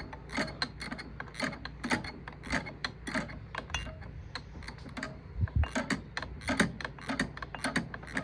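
Ratcheting wrench clicking in short rapid strokes, a few clicks a second, as the nut on the knotter's bill hook spring is adjusted to set the spring tension.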